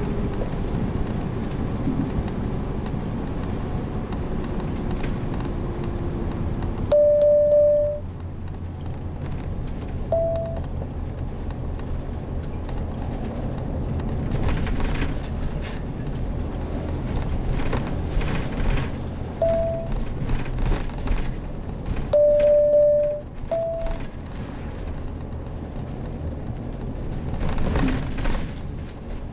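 Motorhome engine and road noise, a steady low rumble that drops noticeably about a quarter of the way in. Over it come five short electronic beeps: two longer ones of about a second, roughly fifteen seconds apart and louder than anything else, and three shorter, slightly higher ones.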